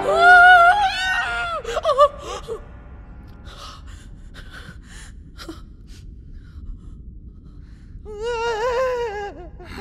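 Cartoon cat's high, wavering yowl of fright, lasting about two and a half seconds. Then come a few short scratchy sounds, and about eight seconds in a man's long, wavering cry of terror.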